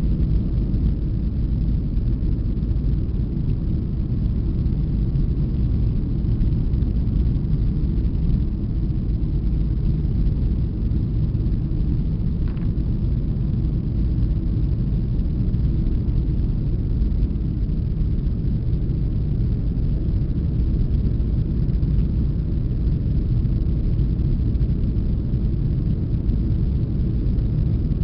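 Steady low roar of an Airbus A330-300's engines and airflow, heard inside the passenger cabin in flight.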